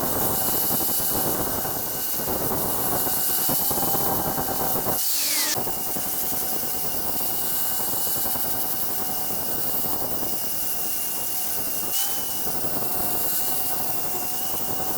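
2x72 belt grinder running steadily with a fixed whine over a rushing, gritty noise as the steel blade is ground against the belt. About five seconds in the sound breaks off briefly with a quick falling tone, then resumes.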